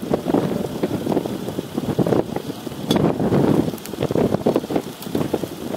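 Gusty wind buffeting the camera microphone, a low rumbling rush that surges and eases every second or so.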